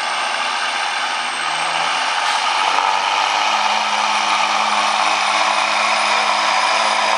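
Semi truck's diesel engine running hard under heavy load as it drags a weight-transfer sled, getting louder about two to three seconds in.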